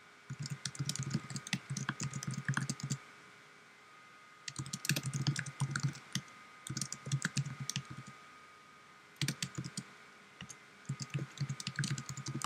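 Typing on a computer keyboard: runs of rapid keystrokes broken by short pauses.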